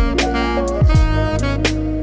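Background music with a steady drum beat and sustained instrumental melody lines.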